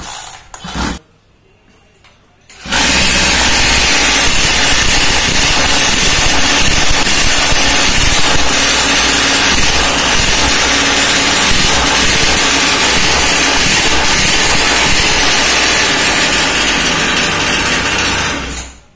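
49cc two-stroke pocket bike engine being pull-started: two short pulls turn it over briefly, then it catches about three seconds in and runs loud and steady for some fifteen seconds before cutting off near the end.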